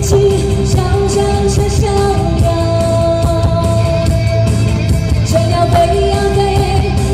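Live band music of a Mandarin rock ballad: long held melody notes that slide between pitches, over a steady drum and bass beat.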